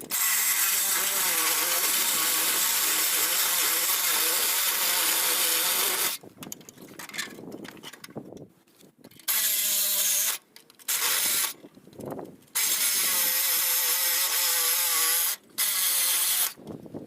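Reciprocating saw (Sawzall) cutting, running in bursts: one long run of about six seconds, then several shorter runs with brief pauses between them.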